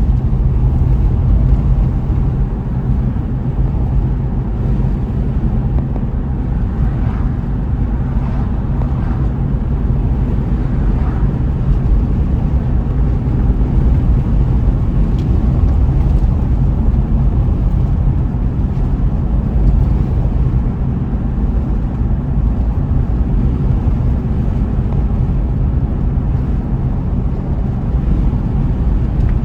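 Car driving on a road: a steady low rumble of tyres and engine.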